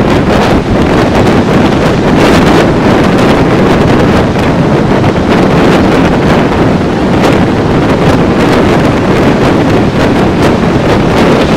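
Loud, steady wind buffeting the microphone, over the wash of breaking surf.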